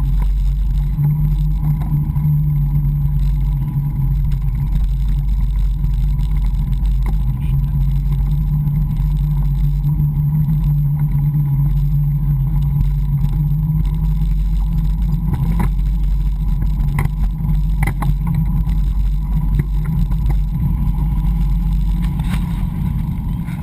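Steady low rumble of a bicycle rolling on asphalt, picked up by an action camera mounted on the frame: road vibration through the mount and wind on the housing, with a few light knocks from bumps in the road.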